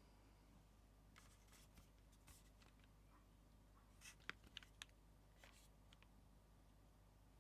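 Near silence: quiet room tone with faint rustles and a few small, sharp clicks clustered about four to five seconds in.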